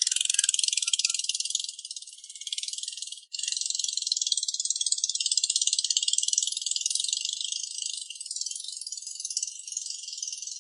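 A dense, high-pitched rattling buzz that drops out sharply for an instant about three seconds in, then carries on.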